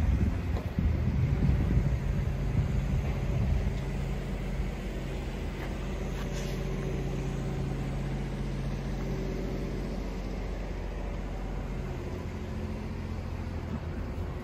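Excavator diesel engine idling steadily: a low, even hum that is rougher and a little louder in the first few seconds.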